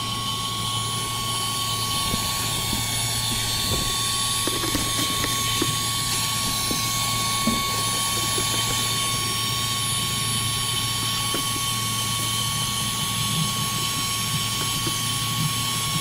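Chemical Guys DetailVac corded handheld vacuum cleaner running steadily, its hose and crevice tool drawn over car floor carpet: an even motor drone with a steady high whine, and a few faint ticks as debris is sucked up.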